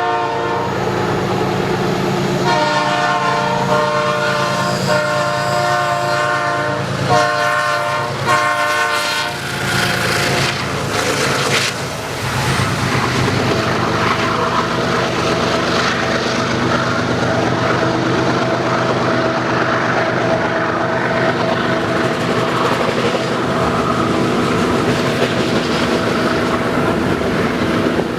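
Train locomotive sounding its multi-note horn in long blasts over the first ten seconds or so, then the train rolling past steadily.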